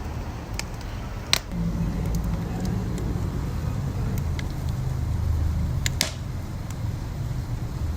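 Wood fire crackling, with scattered sharp pops, the loudest about a second in and again near six seconds, over a steady low rumble.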